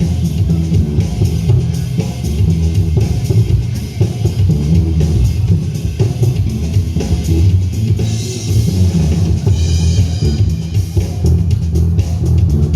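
Live electric bass solo played loud over a drum kit, the bass line heavy and low with busy drum strokes throughout and a burst of cymbals about eight seconds in.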